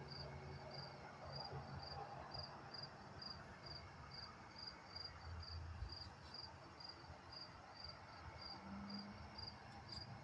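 A cricket chirping steadily, faint, about two short high chirps a second, over a low background rumble.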